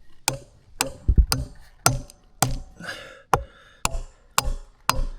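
Hammer striking wood at a steady pace, about two blows a second, ten blows in all: framing lumber being hammered into place.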